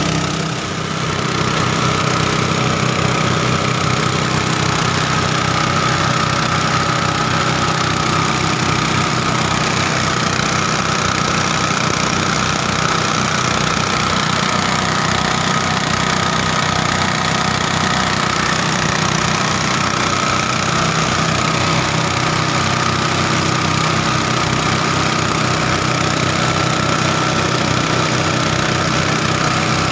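Small engine running steadily at a low, even speed, with a fast regular low pulse.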